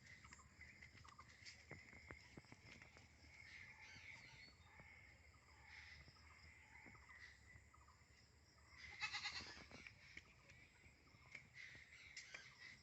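A goat bleats once, briefly, about nine seconds in, over a faint background of small clicks and rustles.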